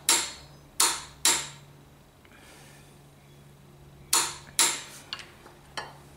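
Click-type torque wrench clicking repeatedly at its 100 Nm setting as the camshaft sprocket bolt is torqued: three sharp clicks in quick succession, two more a few seconds later, then a couple of fainter ticks.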